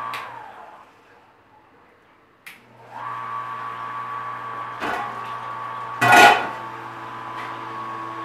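Small brewing pump motor humming, switched off right at the start so its whine winds down, then switched back on about three seconds in and running steadily while it recirculates the wort. A click near five seconds and a short loud whoosh about six seconds in.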